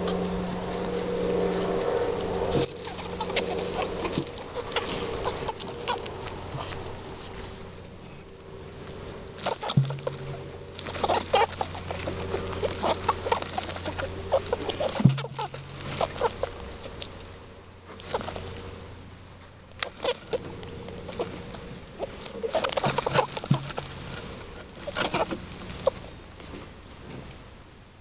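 Straw and rabbit-fur nest lining rustling and crackling as a hand parts it, in irregular clusters of small crackles, over a steady low hum.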